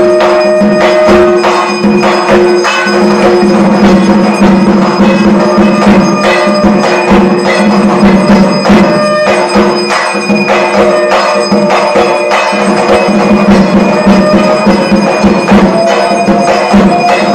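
Bengali aarti accompaniment: drums struck in a fast, dense rhythm with bell-like metallic clangs over a steady droning tone, loud throughout.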